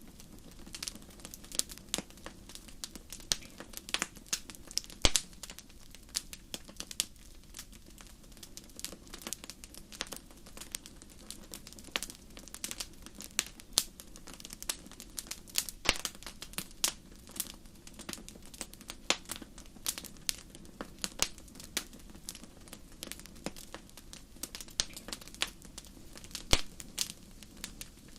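Wood fire crackling in a fireplace: irregular sharp pops and snaps, several a second, over a soft low rumble.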